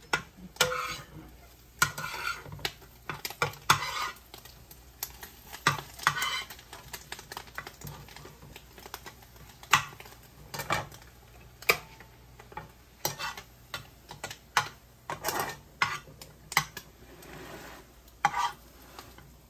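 A kitchen utensil clinking and scraping against a pan and dishes in irregular, sharp knocks and short scrapes, as the fried egg-battered fish is handled.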